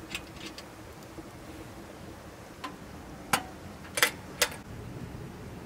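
Firewood crackling and popping in a wood-burning stove: a few faint snaps, then several sharp pops between about three and four and a half seconds in, over a low steady background.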